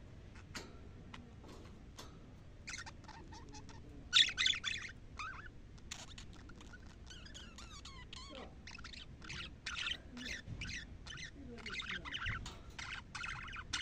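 Budgerigars chattering and warbling in fast, varied twitters and squawks, starting after a few soft ticks and running almost without a break from about halfway. This is the budgie chatter that the title presents as sounds that set females breeding and laying.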